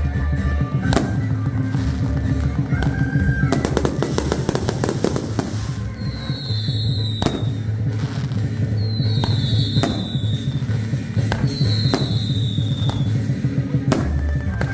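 Fireworks going off in rapid succession: a dense run of bangs and crackling over a continuous low rumble, with three short, slightly falling whistles in the middle.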